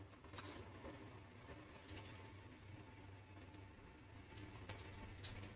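Near silence: faint room tone with a low hum and a few soft clicks and water drips.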